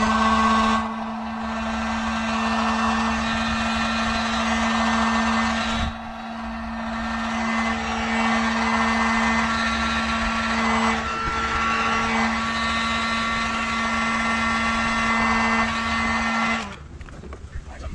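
Electric heat gun running steadily: a fan-motor hum with a rush of blown air as it is aimed at the e-bike's wiring. It switches off suddenly near the end.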